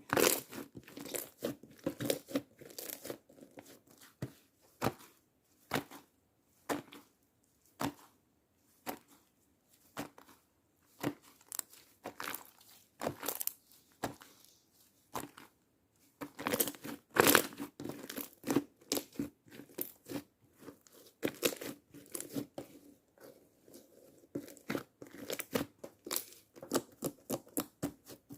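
Slime being squeezed and pressed by hand, giving irregular runs of sharp crackling clicks and pops, with short pauses between handfuls.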